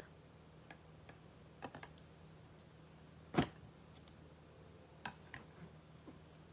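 Scattered light clicks and taps from something being handled, with one sharper knock about three and a half seconds in, over a faint steady low hum.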